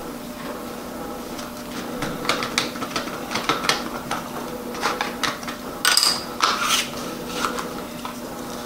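Hands handling something on a tabletop: irregular light clicks and taps, with a cluster of louder ones about six seconds in, over a steady background hum.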